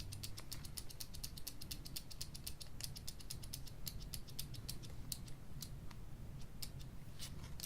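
Rotring 300 0.35 mm mechanical pencil's plastic mechanism clicking rapidly: a fast run of light, sharp clicks that thins out to scattered single clicks in the second half.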